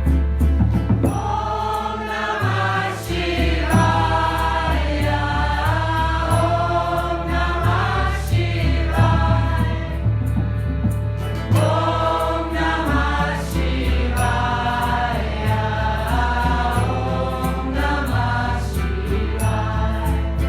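Devotional mantra chanting in kirtan style: a group of voices singing a melodic chant over instrumental backing with a steady bass line.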